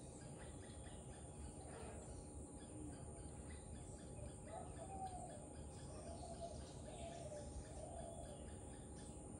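Faint outdoor ambience with distant bird calls: a run of short wavering calls in the second half, over a steady background of faint, regular chirping.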